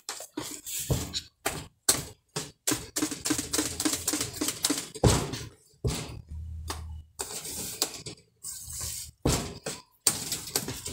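Cake batter being beaten by hand with a spoon in a plastic bowl: a run of quick clicks and knocks of the spoon against the bowl, about two or three strokes a second, with brief pauses.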